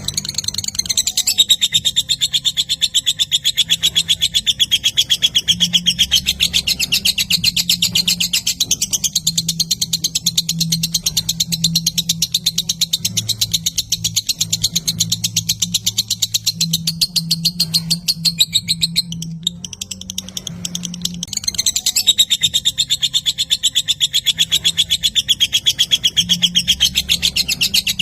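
Lovebird's long rapid chattering song (ngekek panjang): an unbroken stream of very fast, sharp, high-pitched notes, with a short break about two-thirds of the way through before it picks up again.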